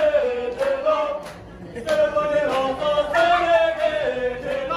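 A voice singing a slow melody in long held notes, in two phrases with a short break about a second and a half in.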